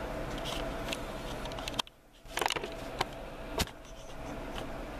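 Handling noise as a wooden walking staff with a cord lanyard and small brass bells is moved about on a tabletop: a few light clicks and knocks over a steady room hum. The sound cuts out briefly about two seconds in.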